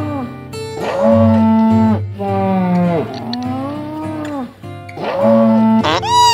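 Three drawn-out, moo-like lowing calls from a bovid, each about a second long, over a steady low background drone. A short, higher bleat comes near the end.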